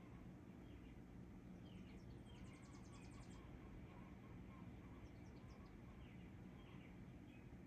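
Faint chirps from small birds, with a short rapid high trill of about ten notes a second about two seconds in, over a steady low background rumble.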